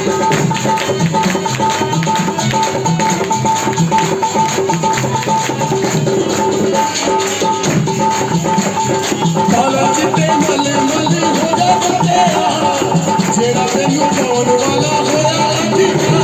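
Instrumental break of a worship song: steady held notes over a rhythmic bass pattern, with shaker-like percussion, and a wavering melody line coming in after about ten seconds.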